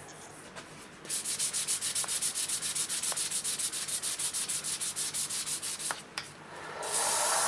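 Sandpaper rubbing on a spinning wood turning on a lathe: a rasping hiss that pulses about nine times a second, stops about six seconds in, and gives way near the end to a steadier hiss.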